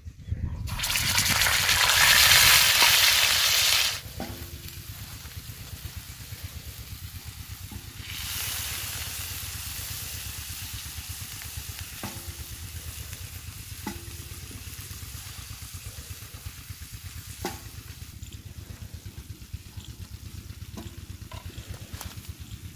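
Minced mutton dropped into hot oil on a tawa: a loud sizzle for about three seconds, then a quieter, steady sizzle as the mince fries, swelling again about eight seconds in. A wooden spoon knocks and scrapes against the tawa now and then.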